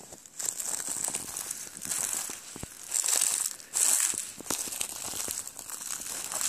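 Footsteps crunching through dry fallen leaves, with a heavier crunch about once a second.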